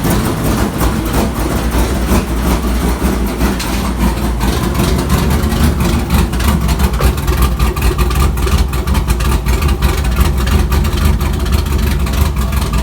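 Turbocharged 6.0-litre LS V8 idling roughly, its note pulsing unevenly. The owner puts the rough idle down to an idle tune he has not yet sorted out on the Hi-Ram intake.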